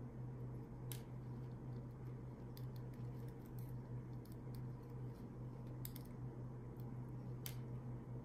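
A few light plastic clicks as a G.I. Joe Snow Serpent action figure and its plastic backpack gear are handled, over a steady low hum.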